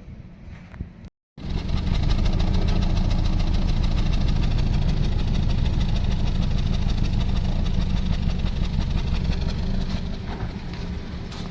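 Exhaust of a Toyota Corolla Altis Grande's 1.8-litre four-cylinder engine idling with an uneven, missing beat: one cylinder is not firing. It starts about a second in.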